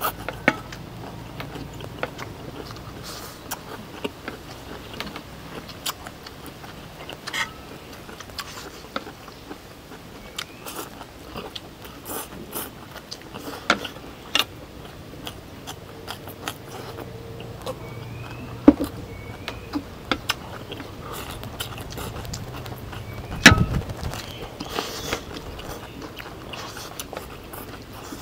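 People eating stir-fried noodles: scattered clicks and taps of utensils against plates, with chewing. Two sharper knocks stand out, one about two-thirds through and one towards the end.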